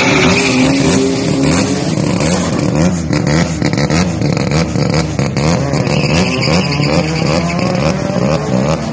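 Turbocharged Mazda RX-7 (FC) rotary engine running at a choppy, lumpy idle as the car rolls slowly, its pitch wavering up and down.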